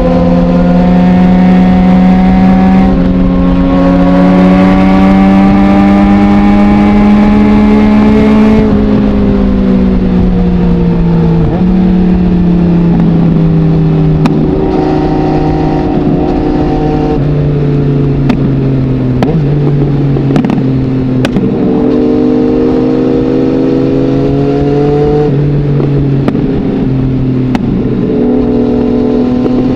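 2020 Yamaha MT-09's inline-three engine, breathing through an Akrapovic full-system exhaust with no dB killer, pulling in gear. Its pitch holds and steps up through the first third, then falls slowly as the rider rolls off, with scattered sharp crackles on the overrun.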